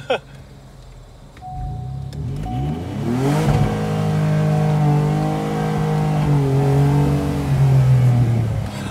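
Ford F-150 pickup engine revved hard by hand on the accelerator pedal, climbing over about two seconds, held high for about five seconds and then let off near the end, with the muffler stuffed with eggs.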